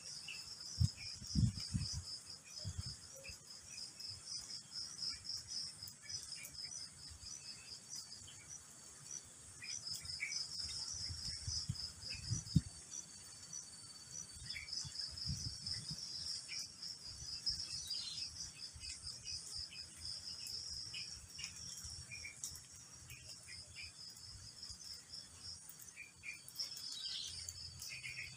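Insects chirring in a fast, pulsing high trill that comes and goes in stretches, with a few short bird chirps scattered through it. A few low thumps, the loudest about a second in and again about twelve seconds in.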